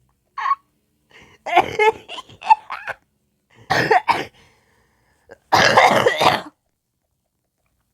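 A sick person coughing in several fits. There is a single short cough, then a run of quick coughs, then a pair, and a longer coughing fit of about a second near the end.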